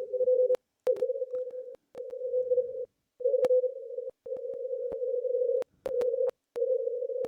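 Morse code (CW) tone received on a software-defined radio: a single rough, wavering mid-pitched tone that cuts out abruptly to dead silence about six times, each cut-out edged with a click. The operator puts this kind of crackle down to the laptop struggling with the stream.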